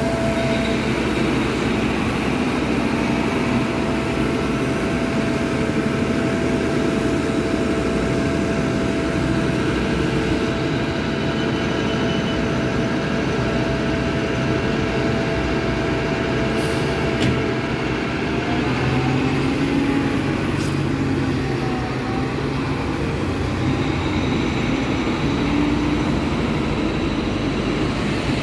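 Articulated city bus's diesel engine running at the stop with a steady whine, which wavers and shifts in pitch about two-thirds of the way through as the bus moves off. Downtown traffic noise continues underneath.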